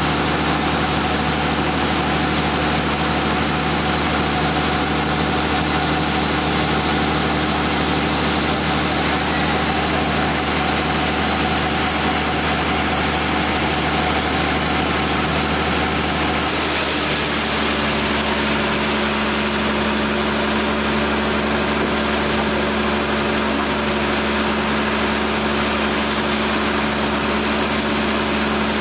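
Sawmill machinery running steadily, an engine-like hum with steady tones. Its pitch pattern changes abruptly about halfway through.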